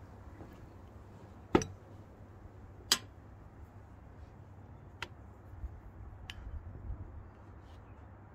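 Metal spoon clinking against a glass bowl while scooping out cheese filling: two sharp clinks a little over a second apart, then two fainter ones.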